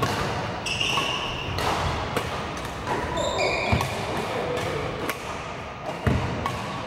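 Badminton rally in a large hall: sharp racket strikes on the shuttlecock, sneakers squeaking on the wooden court floor, and the thuds of players' footwork.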